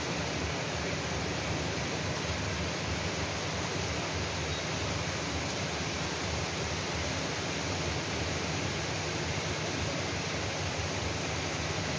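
Heavy rain pouring down: a steady, even rushing hiss with no separate drops or other events.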